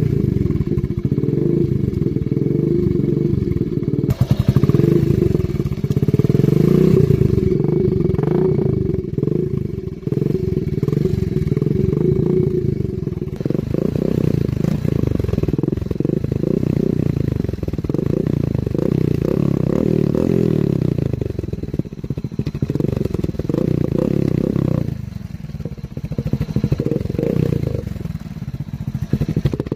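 Hero Splendor Plus motorcycle's single-cylinder four-stroke engine running while parked, its exhaust blowing through a cut-off one-litre plastic water bottle jammed into the silencer outlet, a home-made trick to give it a deep Royal Enfield Bullet-like note. The sound is continuous and deep, its level rising and falling a few times and dipping briefly about 25 seconds in.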